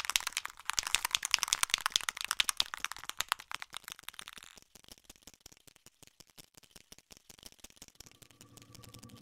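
Aerosol spray-paint can being shaken, its mixing ball rattling in fast, dense clicks that thin out and fade about halfway through. A few steady tones begin near the end.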